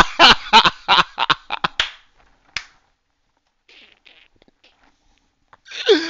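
A man laughing hard in a run of quick, breathy bursts that come faster and fade out over about two seconds, followed by a short voiced sound near the end.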